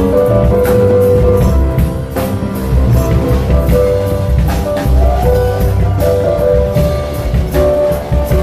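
Live band playing an instrumental passage with no singing: a steady percussion beat over bass, with long held melody notes.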